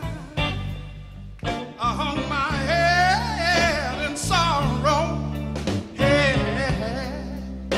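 A male soul singer sings long, wavering notes with wide vibrato into a microphone, backed by a live band holding steady low chords.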